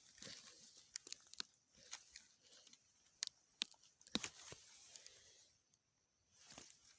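Scattered small crunches, snaps and rustles of dry leaves and plant stalks as krachiao (Siam tulip) flowers are picked by hand.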